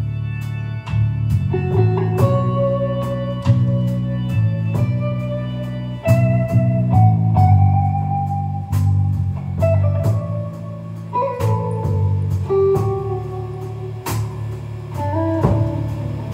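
Electric guitar solo on a Stratocaster-style guitar, in a live band's instrumental break without vocals: long held notes that bend up and down, over steady low accompaniment and drum hits.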